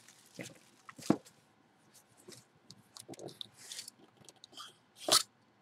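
A cardboard mystery box being unwrapped and its lid opened: scattered rustles and clicks of plastic wrap and cardboard. A sharp snap comes about a second in and another near the end.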